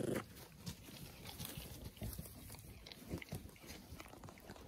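A short, low animal grunt right at the start, then soft rustling and scattered light clicks of fur and clothing rubbing close to the microphone.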